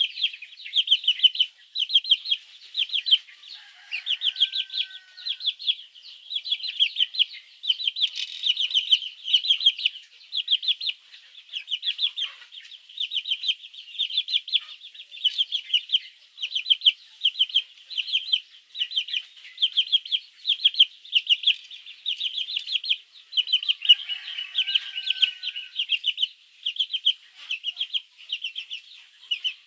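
Baby chicks cheeping continuously in rapid runs of shrill, high-pitched peeps, several birds calling at once. A fainter, lower call shows up briefly twice.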